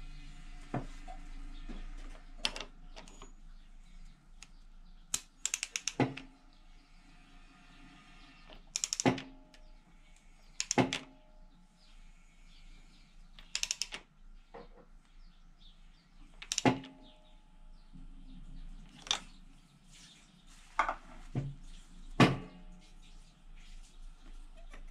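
Spark plug tube wrench clicking and knocking on a Yamaha F6 outboard's spark plug and cylinder head as the plug is turned and tightened: scattered sharp metal clicks, some single, some in quick runs of several.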